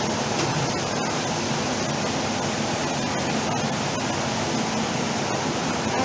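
Blended chili paste sizzling steadily in hot oil in a pan, frying down as the sambal base cooks toward the point where the oil separates.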